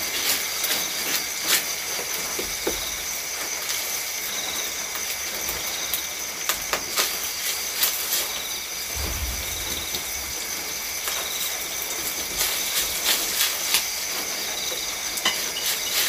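Rice frying in butter in a wok over a wood fire: a steady sizzle, with a spatula scraping and knocking against the pan many times. Crickets trill steadily behind it.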